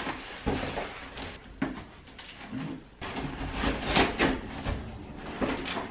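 A knife slicing through packing tape on a cardboard box, a run of short scratchy rasps and scrapes as the blade drags along the seams, the loudest about four seconds in.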